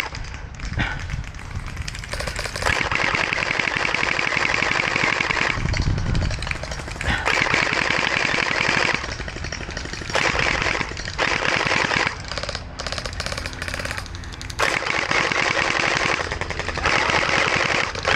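Electric gel blaster, a Hydro Strike Pulsar Pro, firing full-auto: a rapid rattle of shots in several bursts of one to three seconds, with short pauses between them.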